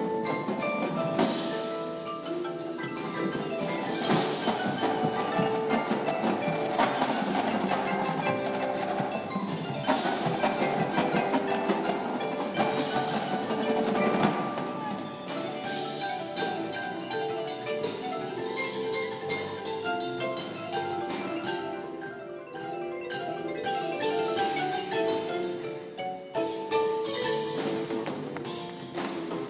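Indoor percussion ensemble playing a passage led by marimbas and other mallet keyboards, with many quick struck notes over some held ringing ones. It gets a little softer about halfway through.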